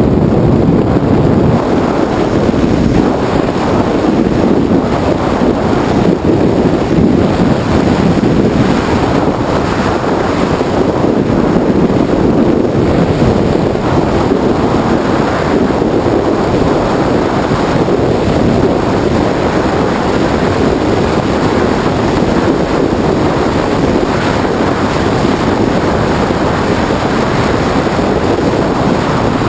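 Steady wind noise buffeting a helmet-mounted GoPro on a motorcycle at road speed, with the Honda VFR750's V4 engine running underneath.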